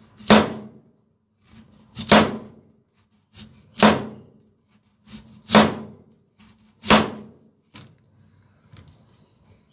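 Knife chopping thin slices off a peeled white radish (daikon) onto a plastic cutting board: five crisp chops, roughly one every one and a half seconds, with a few faint taps between.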